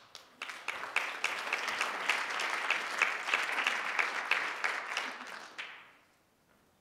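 Audience applauding, starting about half a second in and dying away about six seconds in.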